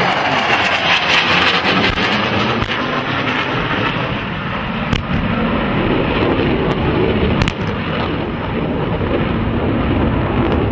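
F/A-18 Hornet jet noise mixed with the booms of air-show pyrotechnic charges set off to simulate bomb strikes, with a few sharp cracks in the middle.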